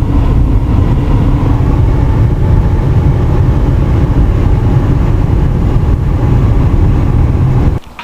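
Car engine and road noise heard from inside the cabin while driving slowly through snow: a loud, steady low rumble that cuts off suddenly near the end.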